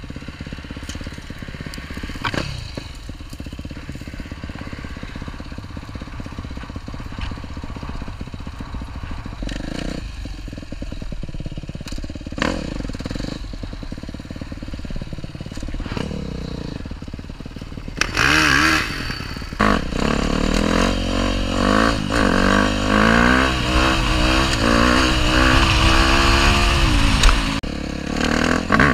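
Enduro motorcycle engine running low and steady, with scattered knocks. About two-thirds of the way in it revs hard, its pitch climbing and dropping again and again under throttle.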